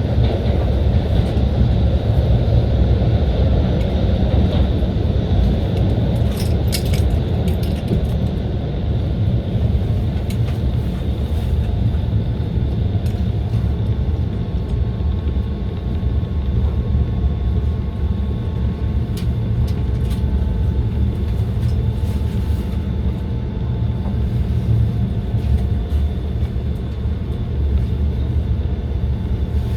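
SEPTA Route 34 trolley, a Kawasaki light rail car, running along its track, heard from inside the car: a steady low rumble with a faint motor whine and a few sharp clicks and rattles.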